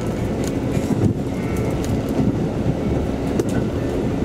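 KiHa 185 series diesel railcar running at speed, heard from inside the passenger cabin: a steady rumble of engine and wheels on rail, with a few faint clicks from the track.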